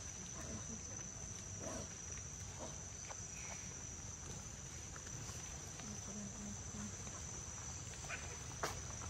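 Forest insects calling steadily, one continuous high-pitched tone, over a low rumble, with a few faint ticks and a sharp click near the end.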